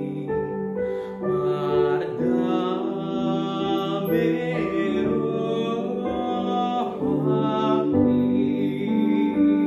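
A young man singing a slow solo song, holding long notes, over a sustained instrumental accompaniment.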